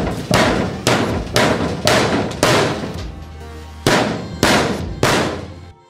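Music with loud, sharp percussive hits about twice a second over a steady low bass note. The hits and the bass stop abruptly together just before the end.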